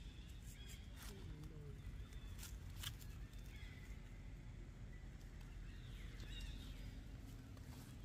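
Faint outdoor ambience: a steady low rumble with scattered sharp clicks and a few faint, short chirping animal calls.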